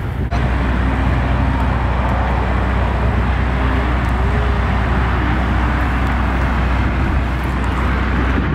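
A loud, steady, low motor-like hum and rumble that cuts in sharply just after the start, with faint wavering tones underneath.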